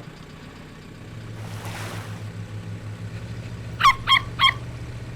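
A young pelican's cartoon calls: three quick, high squawks close together, near the end, over a steady low hum, with a soft swish of water about a second and a half in.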